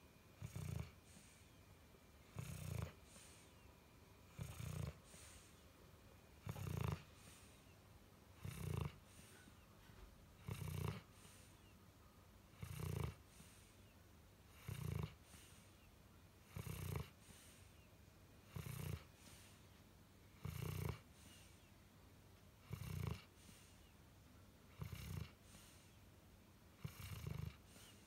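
Sleeping dog snoring steadily, one short low snore about every two seconds.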